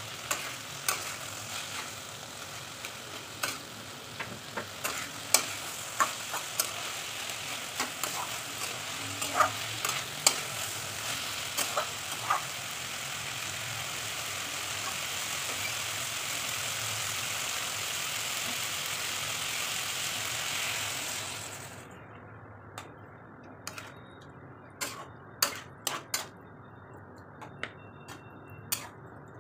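Potato, bitter gourd and eggplant curry sizzling in a kadai while a steel spatula stirs it, with frequent clicks and knocks of the spatula against the pan. The sizzling stops abruptly about three-quarters of the way through, leaving scattered spatula knocks.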